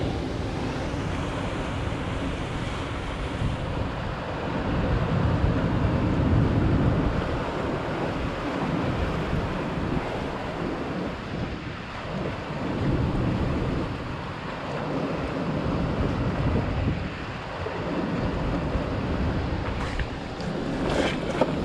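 Sea surf washing and breaking against rock ledges, mixed with wind rumbling on the microphone, the noise swelling and fading every few seconds. A few light clicks near the end.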